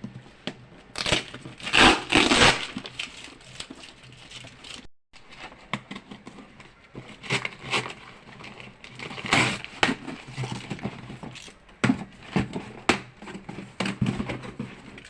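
Irregular crinkling and rustling from packaging being handled, with scattered knocks. The sound cuts out for a moment about five seconds in.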